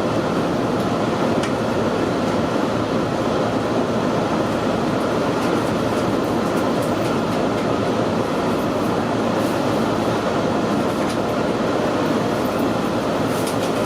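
Cabin noise inside the Resort Asunaro train as it runs along the track: a steady, even rumble of the car rolling on the rails. A few faint clicks come through near the end.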